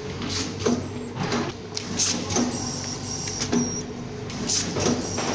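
Automatic sheet-mask folding and bagging machine running, with a steady hum and short hisses from its pneumatic valves and cylinders repeating every half second to a second.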